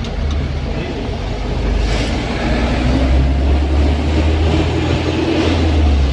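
Isuzu Elf minibus driving at speed, heard from inside: a steady low diesel engine rumble with road noise, growing louder about two seconds in.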